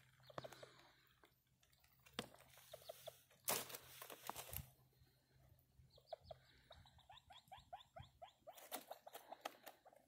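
Ruffed grouse giving soft clucks, then about six seconds in a fast run of clicking notes, some ten a second, followed by scattered clicks. Two brief rustles stand out in the first half.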